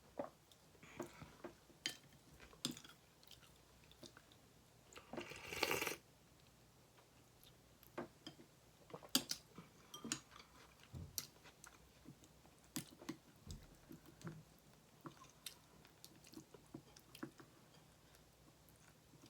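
Close-up mouth sounds of eating: soft chewing with many small scattered clicks, and one louder noisy stretch lasting about a second around five seconds in.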